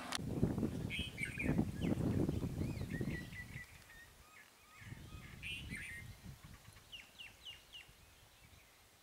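Birds chirping, with several short rising-and-falling chirps in quick succession. Under them is a low, irregular rumbling noise, loudest in the first three seconds, that comes back more weakly around five to six seconds in.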